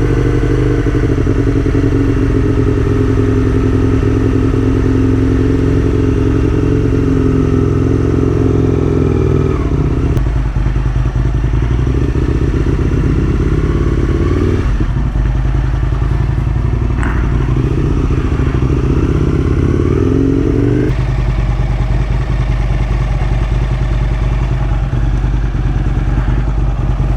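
Aprilia RSV1000's V-twin engine running as the motorcycle is ridden. The engine note steadies for the first ten seconds, then drops away and picks up again several times.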